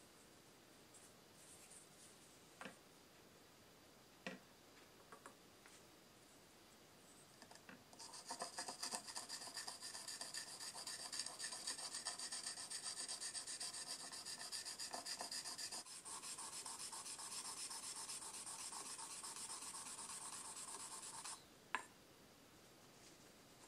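A block of polishing charcoal rubbed in quick back-and-forth strokes over cured black urushi lacquer on the wooden scabbard, wet-polishing the layer flat before the next coat. The gritty scraping starts about a third of the way in after a few faint taps, pauses briefly, and stops near the end with a click.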